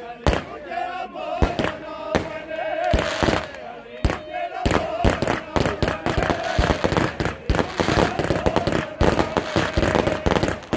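Fireworks display: shells and rockets bursting in sharp bangs and crackles, scattered at first and then a rapid string from about halfway through. Crowd voices shout underneath.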